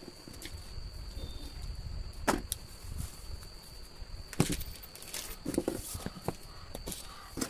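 Handling sounds of unpacking: scattered knocks, taps and rustles as a TV remote control, papers and plastic are moved about on a cardboard box, the sharpest knocks about two seconds in and just past halfway. A faint steady high-pitched tone runs underneath.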